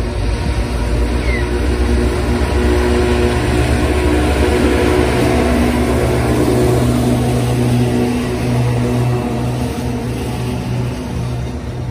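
Diesel train engines running close by, with a steady engine hum under a broad rushing noise. It grows louder to a peak about halfway through and eases off toward the end.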